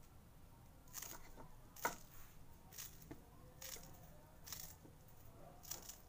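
Fresh coriander being cut by hand: about six faint, short, crisp cuts, roughly one a second.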